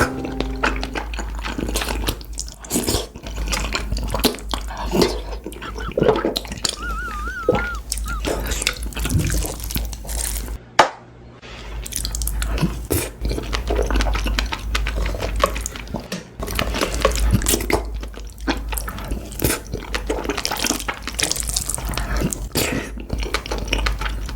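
Close-miked mukbang eating sounds: dense wet chewing, smacking and slurping clicks over a steady low hum. There is a brief warbling tone about seven seconds in and a short quiet gap about eleven seconds in.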